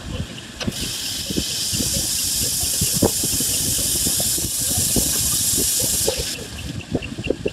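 Grinding wheel grinding the helical lobes of a screw-compressor rotor under a coolant spray: a steady high hiss that starts about a second in and stops about six seconds in, over scattered light knocks.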